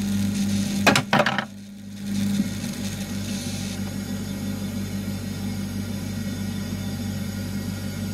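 Commercial cube ice maker running with a steady electrical hum, heard from inside the machine during its harvest cycle. Two sharp knocks come about a second in, then a steady wash of noise follows.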